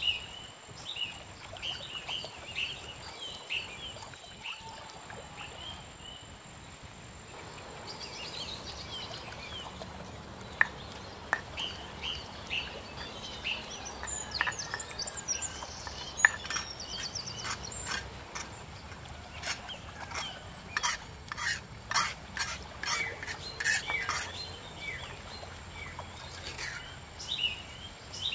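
Stone pestle knocking and grinding in a stone mortar (Indonesian cobek and ulekan): sharp irregular clicks, most frequent in the second half, with two louder knocks. Birds chirp in short repeated calls throughout.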